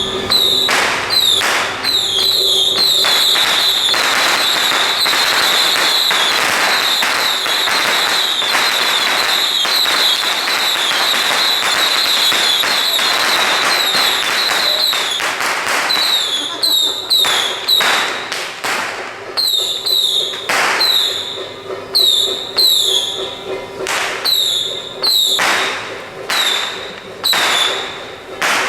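A string of firecrackers going off in a rapid, continuous crackle, then thinning after about halfway into separate loud bangs.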